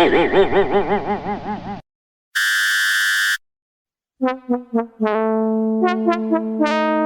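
A run of separate short sound effects: a rapidly warbling pitched tone that stops about two seconds in, then a one-second steady buzzer, then a few quick notes that lead into a held synthesizer chord.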